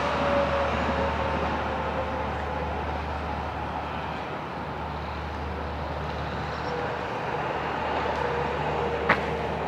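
Steady hum of road traffic on a city street, with a single sharp click near the end.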